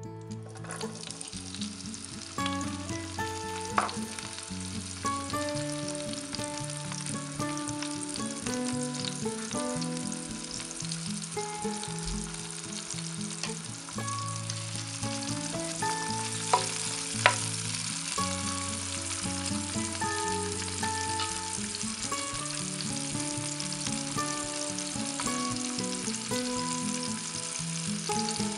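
Chopped green peppers sizzling and frying in hot oil in a pan. The sizzle starts as they are tipped in, about half a second in. A few sharp clicks occur, and light background music plays underneath.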